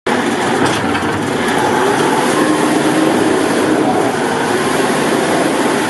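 Small self-loading concrete mixer truck running, a loud, steady engine and machinery noise.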